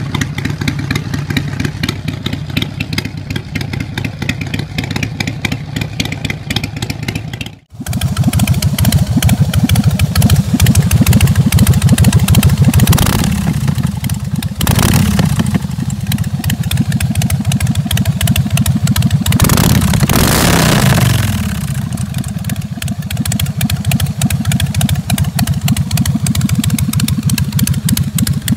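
Harley-Davidson Sportster Evolution 45-degree V-twin idling with an even beat; after a sudden cut about eight seconds in, a Harley-Davidson Twin Cam 45-degree V-twin runs louder and is revved up several times, the last rev, about two-thirds through, falling back to idle.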